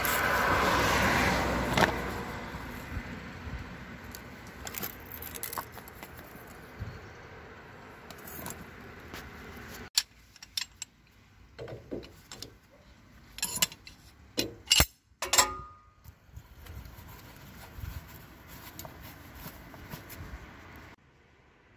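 A spray hissing for the first couple of seconds, then scattered metallic clinks and rattles as hand tools and a hose clamp are worked on a truck tail lift's hydraulic cylinder, thickest in the second half, one clink ringing briefly.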